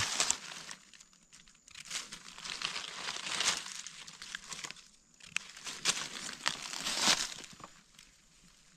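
Dry fallen leaves rustling and crackling in irregular bursts as gloved hands pick a mushroom out of the leaf litter and handle it. The bursts are loudest about three and a half and seven seconds in, and the sound dies down near the end.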